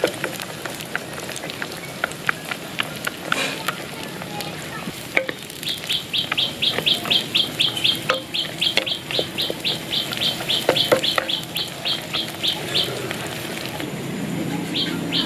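Wooden spatula stirring peanuts in oil in a wok, with scattered clicks of nuts and spatula against the pan and a light sizzle. From about six seconds in, a bird chirps rapidly, about four short high notes a second, for some seven seconds, and again briefly near the end.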